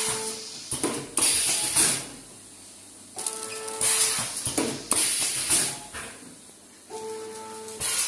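SK 160Y cough syrup packing machine running through its cycle: repeated hisses with a short tone that recurs about every three and a half seconds.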